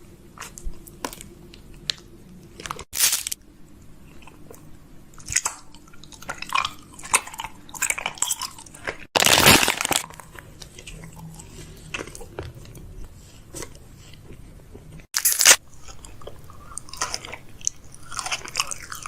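Close-up crunching and crackling of makeup items being handled: many short crackles and clicks, with three louder bursts of noise about three, nine and fifteen seconds in, the middle one the loudest.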